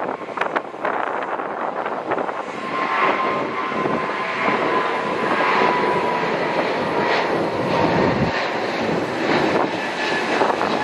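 Jet engines of a Boeing 777-200 airliner running at takeoff thrust during its takeoff roll and liftoff: a loud, steady rushing noise with a thin whine a couple of seconds in.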